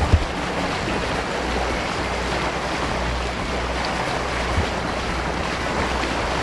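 A 45-foot sailing yacht under way: a steady rush of water and wind over a low, even drone.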